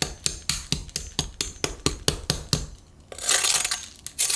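Crisp, glassy pork crackling on a rolled porchetta clicking sharply under a long knife blade, about five even clicks a second. A little after halfway comes a denser crunch of the crackling for most of a second, and a short burst near the end.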